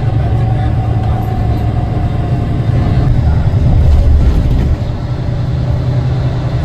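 Steady low rumble of a moving road vehicle, engine and tyre noise heard from on board.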